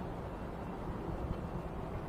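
Steady low rumble of wind buffeting the microphone at an open waterside, with no distinct events.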